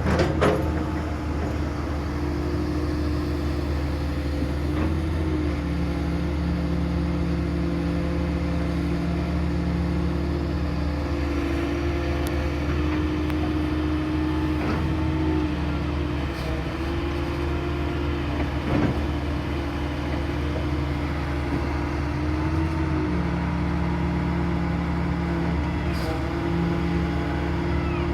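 Hydraulic excavator running steadily under its diesel engine with a constant hum; the note dips and shifts briefly a few times, and a couple of faint knocks come through.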